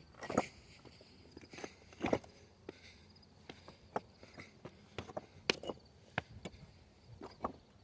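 Footsteps walking at an uneven pace, with scattered small clicks and knocks between the louder steps.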